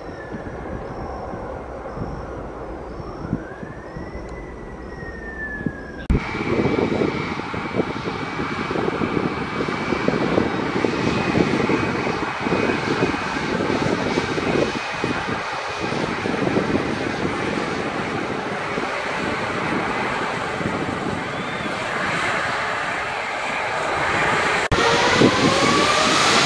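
Jet airliner engines throughout. At first a departing jet climbs away, its whine gliding up and down. After a sudden cut comes the louder, rough running of an Azul Embraer jet's turbofan engines close by on the runway, with a steady high whine. Near the end the engines spool up in a rising whine, growing louder as for the takeoff roll.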